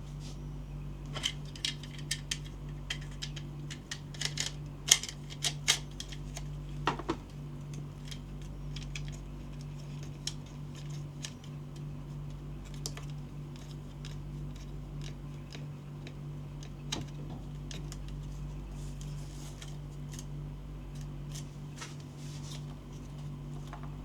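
Sharp clicks and snaps of handling a gel blaster and its plastic parts and packaging, in a quick cluster over the first several seconds and then only now and then, over a steady low hum.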